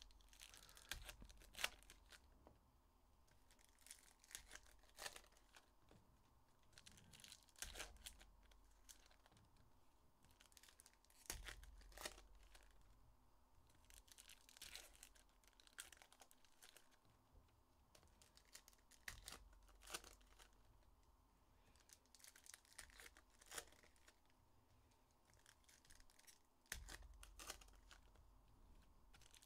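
Faint tearing and crinkling of foil wrappers on 2023 Panini Illusions football card hobby packs being ripped open by hand. It comes in clusters of short crackles every three to four seconds, with softer handling of the cards between.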